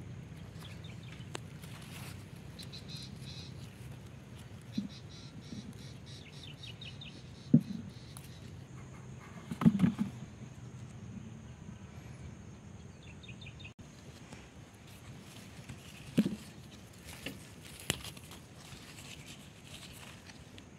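Outdoor field ambience with rapid, high chirping trills in the first half and again briefly later. A few sudden soft thumps and knocks stand out, the loudest a short cluster about halfway through.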